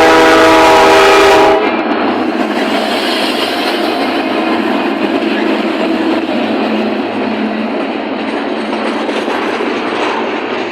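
Locomotive air horn sounding a loud multi-note chord that cuts off about a second and a half in, followed by the steady rumble and clatter of the train's wheels rolling past on the rails.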